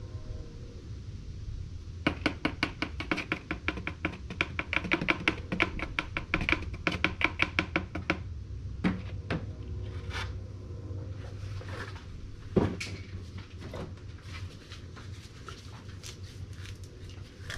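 Motor oil glugging from a tilted plastic jug into a funnel, a fast run of gurgles for about six seconds as air bubbles back into the jug. After that come a few scattered clicks of the jug and funnel being handled, one of them a sharper knock, over a steady low hum.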